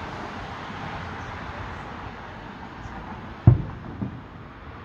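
Distant fireworks going off: one sharp boom about three and a half seconds in and a fainter one half a second later, over a steady background hum of city traffic.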